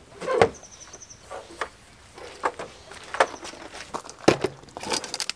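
A metal clunk about half a second in as the rear-door latch bar of an enclosed cargo trailer is turned, followed by a scattered string of light knocks and clicks from handling materials.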